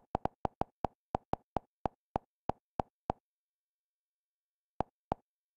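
Kodi menu navigation sounds: a short identical blip for each step of the cursor down a list. About fourteen come in quick succession, four or five a second and slowing slightly, then after a pause two more near the end.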